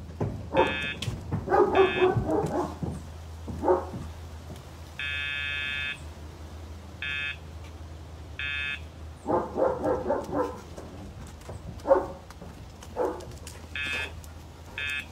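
A large dog barking in short bouts, mixed with seven electronic buzzer tones: six short beeps and one held for about a second.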